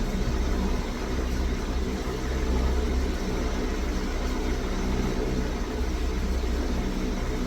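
Steady low mechanical hum, unchanging throughout, with no distinct clicks or knocks.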